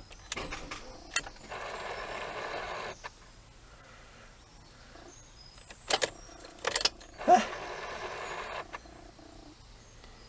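Sharp clicks and two short electric whirs, each about a second and a half long, as the Ford Transit van is tried on its weak battery; the engine does not catch.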